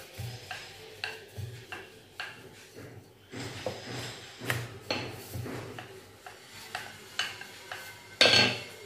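Wooden rolling pin rolling and knocking on a round wooden board as a stuffed puran poli is rolled out thin: irregular soft knocks and rubbing, with one louder thump just after eight seconds in.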